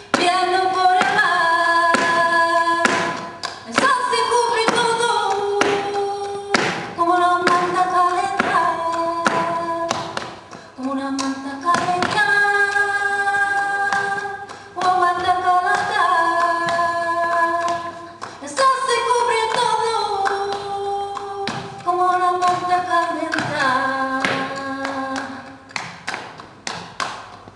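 A woman singing flamenco in long, drawn-out phrases with short breaks between them, over the sharp taps and stamps of a flamenco dancer's shoe footwork. The taps come thicker near the end.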